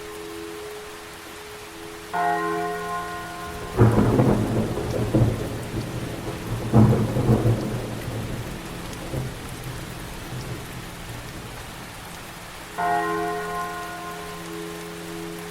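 Steady rain with two claps of thunder rumbling, about four and seven seconds in, the loudest sounds here. A deep bell tolls twice, once about two seconds in and again near the end, each stroke fading slowly.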